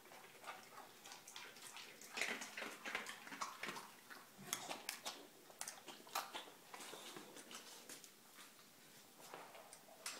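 Boxer dogs eating dry kibble and lapping water from stainless steel bowls: irregular crunching and wet lapping.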